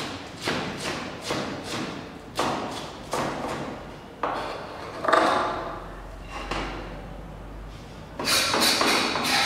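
Chef's knife chopping a leafy vegetable on a plastic cutting board, striking the board in a steady rhythm of about two to three chops a second. A run of quicker chops comes near the end.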